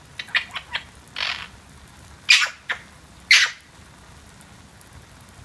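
Eclectus parrot calling: a few quick clicks and chirps, a short rasp, then two loud squawks about a second apart.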